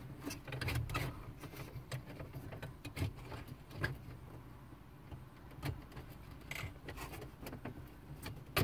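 Plastic radio bezel of a Saturn L-series dash being handled and pushed against its clips: scattered light clicks, taps and rubbing, with a sharper click at the very end.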